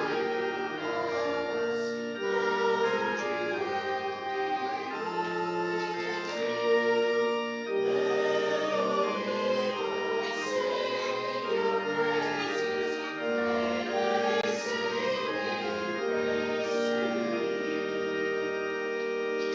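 Church congregation singing with organ accompaniment, held chords moving note by note.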